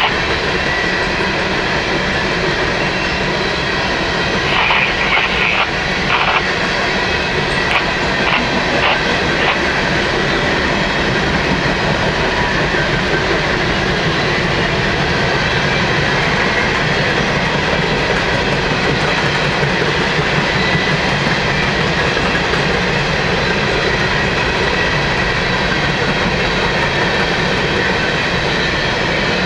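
Empty coal hopper cars of a long freight train rolling steadily past, a continuous rumble of wheels on rail. A few short sharp clanks or squeals come between about four and nine seconds in.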